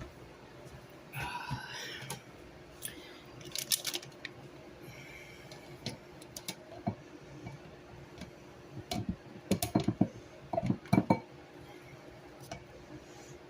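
Kitchen handling sounds: scattered light clicks, knocks and clinks of kitchenware and containers on a counter. The knocks are loudest and most frequent in a cluster about nine to eleven seconds in.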